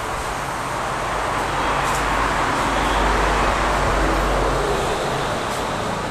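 Motor-vehicle traffic noise, a steady rushing with a deep rumble that swells over the middle few seconds and eases off, as a vehicle passes.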